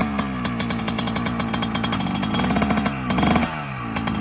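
2003 Yamaha YZ125's single-cylinder two-stroke engine running and being revved. The revs fall back at the start, rise again about three seconds in, then drop.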